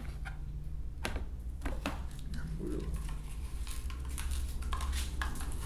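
Light clicks and taps of a plastic spoon scooping ground feed out of a plastic container and against a plastic tub on a kitchen scale, over a steady low hum.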